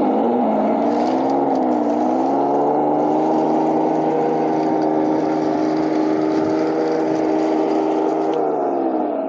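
Simulated tank engine sound played through the Heng Long King Tiger RC tank's sound unit speaker as the tank drives, revving up, holding steady at a higher pitch, then winding down near the end.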